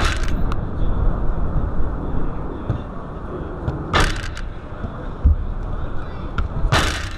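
Steady low rumble with three short, sharp hits of a football being struck: one at the start, one about four seconds in, and one near the end.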